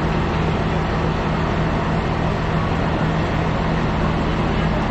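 Electric locomotive standing at a station platform with its pantograph up, giving a steady hum and whir with a low tone underneath.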